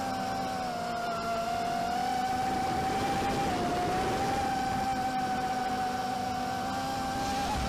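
ZMR250 racing quadcopter's Cobra 2208 2000kv brushless motors and propellers running with a steady whine. The pitch dips briefly about a second in and again around three and a half seconds in. These dips match the momentary hiccups that the owner is trying to troubleshoot.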